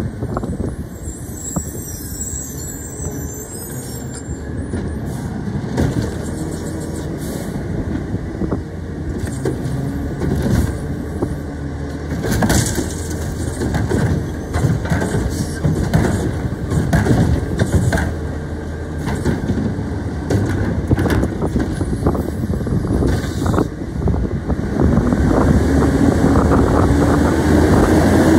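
Mack front-load garbage truck's diesel engine running while its front arm lifts a wheeled trash cart over the cab and tips it into the hopper, with scattered knocks and clatter from the cart and the arm. Near the end the engine revs up in a rising whine.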